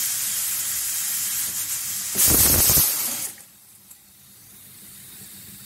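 Stovetop aluminium pressure cooker whistling: steam hisses out past the weight valve, swells to a louder blast about two seconds in, then drops off sharply a second later to a faint hiss. The whistle is the sign that the cooker has come up to full pressure.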